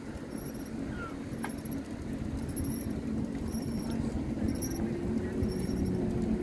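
Distant jet ski engine running: a steady drone, with a higher tone joining about five seconds in as it grows slightly louder, over wind rumble on the microphone.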